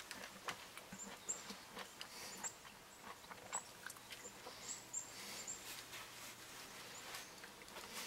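Woodpecker pecking at a hanging birch-log feeder: faint, irregular taps and clicks, with brief, thin, high bird chirps scattered through.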